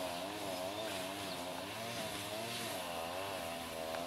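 A motor running steadily, its pitch wavering up and down about three times a second.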